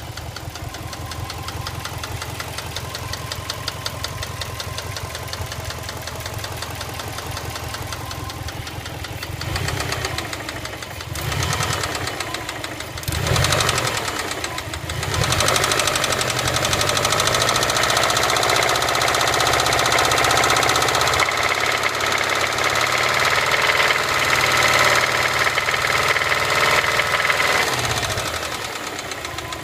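Subaru EJ206 flat-four engine with a knock, idling, then blipped a few times about ten seconds in and held at raised revs for roughly twelve seconds before dropping back to idle near the end.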